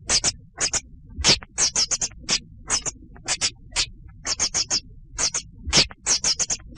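A small animal giving rapid, short, high-pitched squeaks in quick clusters of two to five, over a faint low background hiss.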